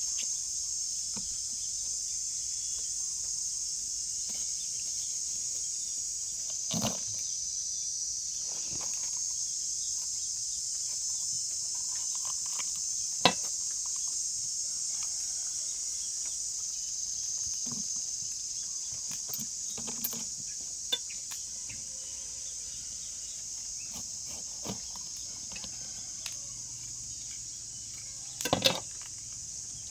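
Steady high-pitched drone of insects, with scattered short knocks and clicks and a louder clatter of several knocks near the end.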